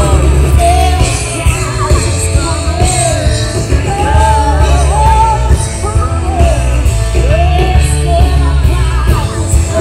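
Live band playing a song with a lead singer over drums, electric guitar and keyboard, loud and amplified, with a heavy bass.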